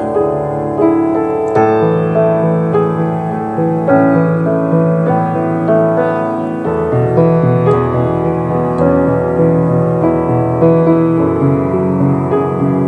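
Music: an instrumental passage of piano playing held chords over a bass line, with a deeper bass note coming in a little past halfway.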